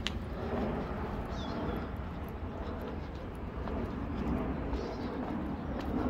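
Outdoor park ambience: a steady low rumble of distant city traffic, with a few faint clicks and a brief bird chirp about a second and a half in.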